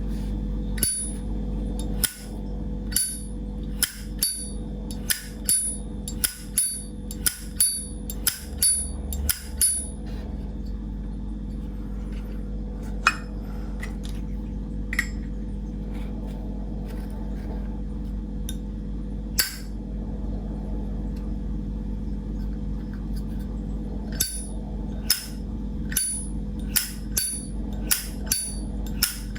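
Vintage Zippo lighter's hinged lid flicked open and snapped shut over and over: sharp metallic clicks with a bright ring. They come in quick runs for the first ten seconds and again near the end, with a few single clicks between.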